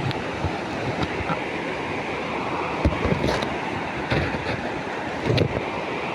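River water rushing steadily, with a few short knocks about three, four and five seconds in.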